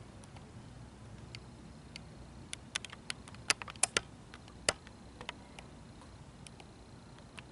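A cluster of sharp clicks and taps, about a dozen in a little over two seconds and loudest in the middle: handling noise from fingers on the body of a handheld video camera as it is re-aimed. Under them is a faint, steady low background rumble.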